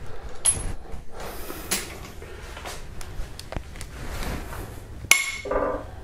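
Long ratchet on a cylinder head bolt of a Hyundai/Kia 2.4 GDI engine. There are a few light metal clicks and taps, then a sharp metallic crack with a high ringing ping about five seconds in, as the bolt breaks loose.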